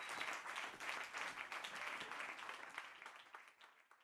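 Audience applauding, a dense patter of many hands clapping that fades away over the last second.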